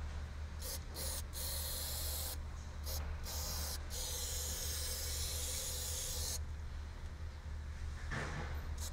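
Aerosol can of spray adhesive hissing in a series of bursts: a few short sprays in the first couple of seconds, then longer ones, the last about two and a half seconds long, stopping around six and a half seconds in.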